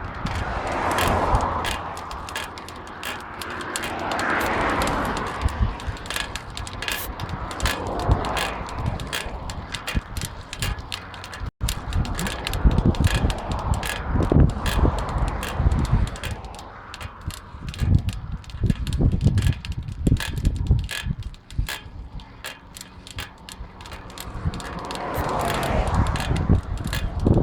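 Bicycle wheel making a repeated, irregular clicking and knocking noise as it turns, which the owner suspects comes from the hub or its bearings.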